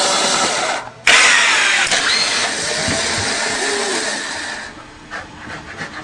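A loud whirring, motor-like noise that cuts out briefly about a second in, starts again abruptly, and dies away near the end.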